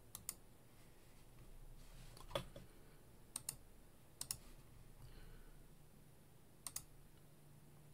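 Faint clicks of a computer being operated, mostly in quick pairs a few times across the stretch, over quiet room tone.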